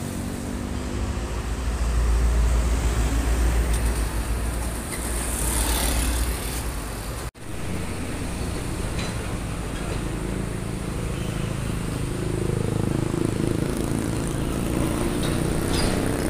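Diesel trucks passing close by on a road, their engines running with a heavy low rumble and tyre noise. The sound cuts out for an instant about seven seconds in, then another truck's engine rises as it approaches and passes.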